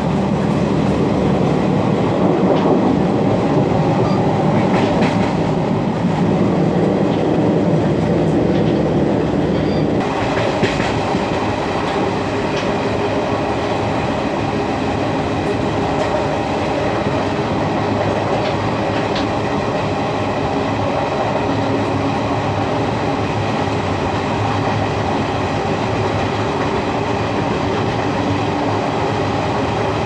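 Indian Railways ICF passenger coaches running at speed: steady wheel-and-track noise with occasional clicks over rail joints. The noise changes and thins about ten seconds in.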